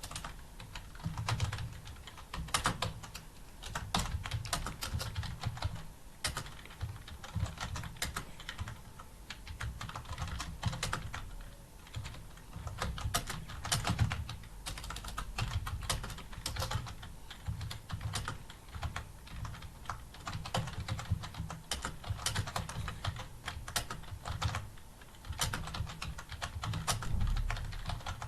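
Fast, continuous typing on a computer keyboard: a steady stream of irregular key clicks during a timed typing test.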